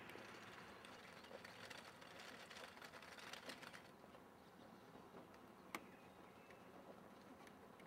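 Near silence: faint outdoor air with a scatter of soft ticks and taps, and one sharp click near the middle.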